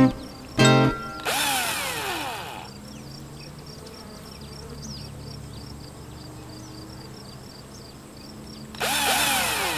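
Outro sound design over a soft sustained low tone with faint regular ticks. Early on a cordless drill whirs for about a second and a half and winds down in pitch. A second drill whir comes near the end.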